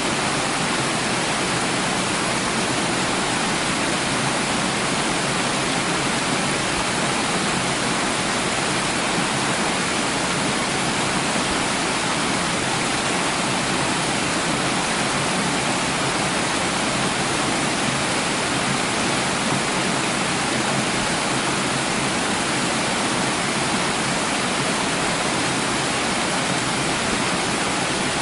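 Running water making a steady, even rush that does not change.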